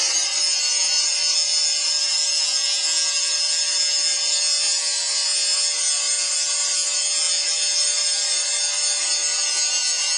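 Angle grinder running steadily under load, its disc grinding the still-hot cut face of a bloomery iron bloom for a spark test: an even whine over the grinding noise.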